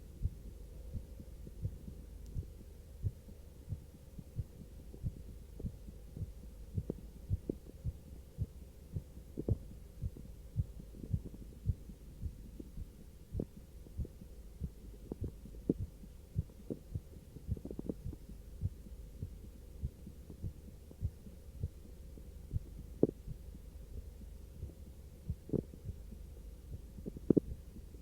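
A person's heartbeat just after a short arm exercise: regular low thuds at about four beats every three seconds, over a steady low hum of recording noise.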